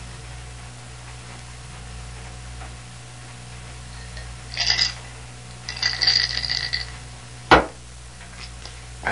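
A steady low electrical hum. Over it come two short hissy, clinking noises about halfway through and one sharp knock on a table near the end, as a drink is handled and drunk.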